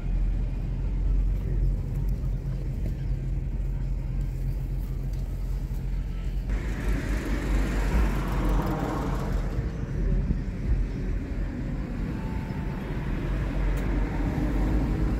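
Steady low rumble of a motor vehicle engine running nearby, under outdoor background noise that grows busier about six and a half seconds in.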